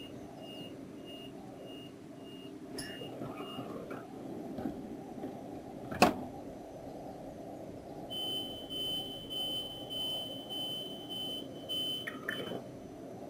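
Koleje Mazowieckie electric multiple unit standing with a steady low hum. A high electronic beep repeats about twice a second for the first three seconds or so, a single sharp knock comes about six seconds in, and a longer high beeping tone sounds for about four seconds near the end.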